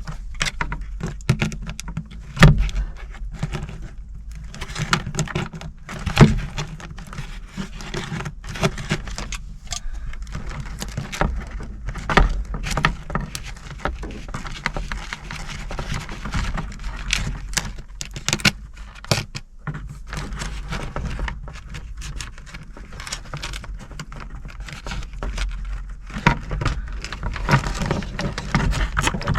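Irregular small clicks, rattles and knocks of hand work on a small part, a few sharper ones about two and six seconds in: fiddling to free a stuck momentary switch from a gauge cluster.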